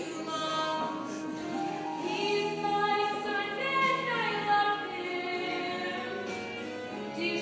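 Musical-theatre singing: voices, led by a female voice, singing held, gliding notes over instrumental accompaniment.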